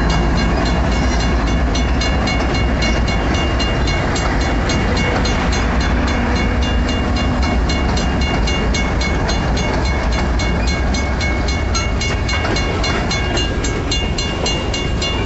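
BNSF grain train rolling past at close range: a steady heavy rumble of the freight cars on the rails, with a fast, even ticking throughout.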